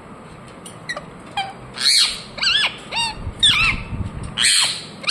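Indian ringneck parrot giving a series of short, harsh calls that rise and fall in pitch, about two a second, starting about two seconds in after a couple of faint calls; the owner takes the calling as a sign the bird is angry.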